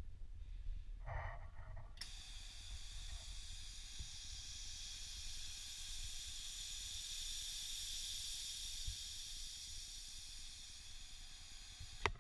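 Compressed shop air hissing through the cleaning port of an ATC SPCT-100A spark plug cleaner, with a short burst about a second in and then a steady hiss for about ten seconds that stops near the end with a few clicks.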